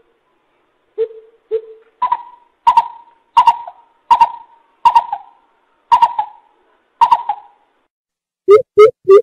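Coucal (bubut) hooting: two short low hoots, then a steady series of about seven hollow hoots, a little under one a second. Near the end a louder, quicker run of notes begins.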